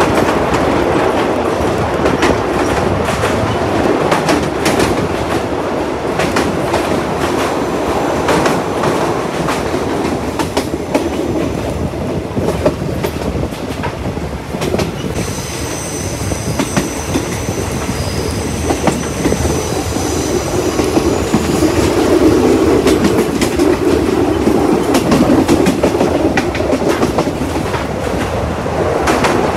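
Passenger train heard from aboard, running on jointed track: a steady rumble with the clatter of wheels over rail joints. About halfway through, a high wheel squeal rings for several seconds.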